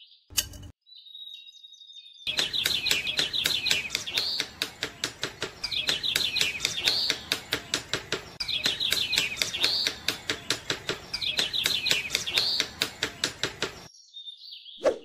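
Bird-like chirping calls, repeating every second or so, over a fast, even clicking of about three to four clicks a second; a single knock near the end.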